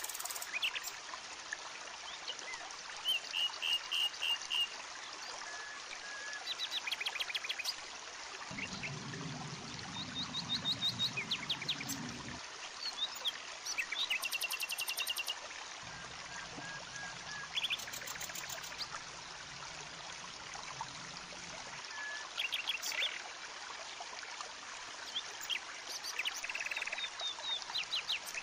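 Forest ambience: birds chirping in short repeated calls and quick trills, scattered throughout, over a steady hiss.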